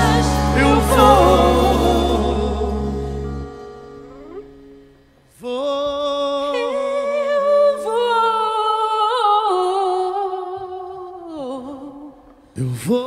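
Live pop-rock band holds a loud final chord that dies away, then one voice sings a wordless, unaccompanied ad-lib of long held notes with vibrato. A sharp knock sounds near the end.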